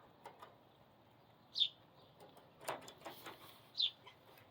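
A bird chirps twice, about two seconds apart, each call short, high and sliding down in pitch, with faint rustling and crackling between the calls.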